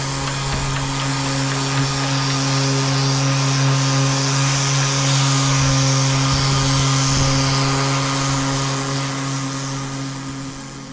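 Handheld electric disc sander running steadily, its motor humming under the hiss of the abrasive disc scraping old paint off a yacht's deck. The sound fades out near the end.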